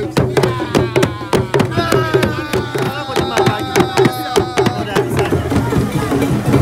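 Ghanaian traditional drumming: drums struck with curved sticks in a fast, steady run of strokes. Several long held, slowly falling tones sound over the drumming from about two to five seconds in.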